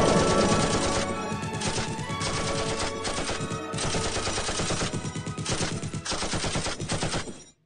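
Rapid automatic gunfire in long bursts, with music under it, stopping abruptly near the end.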